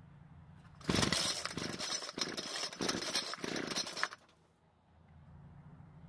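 Homelite two-stroke string trimmer engine catching on full choke about a second in, running for about three seconds, then dying suddenly. The owner takes this for a flooded engine.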